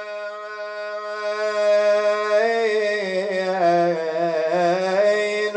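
A man's unaccompanied voice chanting a Shia mourning elegy (nai), holding one long steady note that turns into a wavering, ornamented melisma from about halfway.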